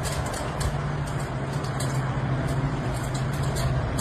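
A steady, low engine-like hum over continuous background noise.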